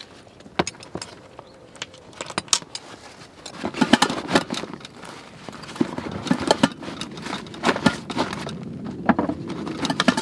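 Camp cooking kit being packed away by hand: utensils and stainless pots and a kettle knocking and clinking, with fabric rustling. A few separate clicks at first, then busier clattering and rustling from about three and a half seconds in.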